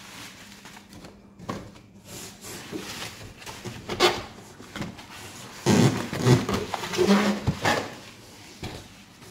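Bubble wrap and plastic packaging rustling and crinkling as it is pulled about inside a cardboard box, with a sharp knock about four seconds in and a louder stretch of rustling and knocking a little past the middle.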